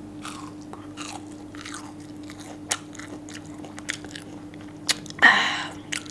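Close-up crunchy chewing of breaded fried fish sticks: a string of short crisp crackles, with a louder burst about five seconds in, over a faint steady hum.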